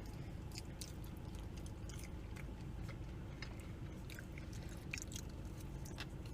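People chewing food close to the microphone, with many small wet mouth clicks and smacks scattered throughout over a low steady hum.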